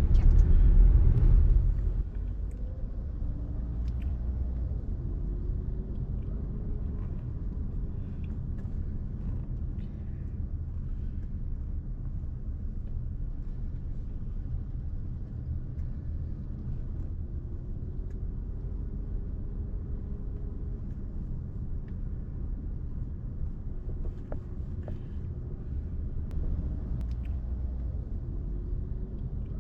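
Car driving along a road: a steady low engine and road rumble, louder for the first two seconds, with the engine's pitch gently rising and falling.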